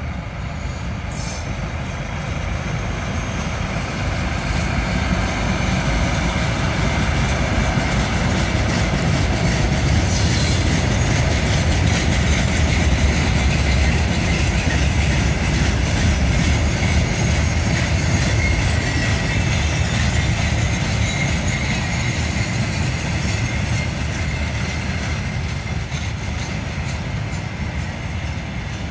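VR Class Dv12 diesel locomotive running as it hauls a freight train of empty log wagons past, then the wagons' wheels rolling and rattling over the rails. The sound swells to its loudest around the middle and slowly fades.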